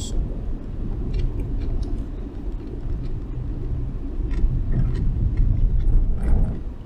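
Steady low road rumble inside a moving car's cabin, with a few faint clicks and taps, likely from eating out of a bento box.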